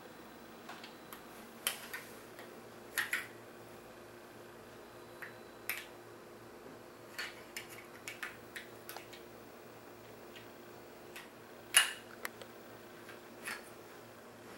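Small hard plastic toy pieces clicking and knocking together as they are handled, in a dozen or so scattered clicks, the loudest a little past the middle. A faint steady hum lies under them.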